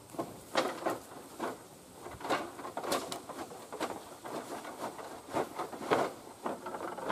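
Dry bamboo leaves and brush rustling and crackling in irregular bursts about a second apart, as the thicket is pushed through.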